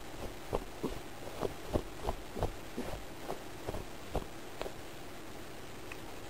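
Soft, muffled thumps and rustling as a cat bunny-kicks and grapples a plush toy, about a dozen irregular thumps two to three a second that stop about four and a half seconds in, over a faint steady hum.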